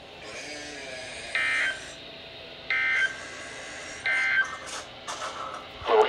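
Weather alert radio beeping three times, short electronic beeps about a second and a half apart, signalling an active warning that was just received.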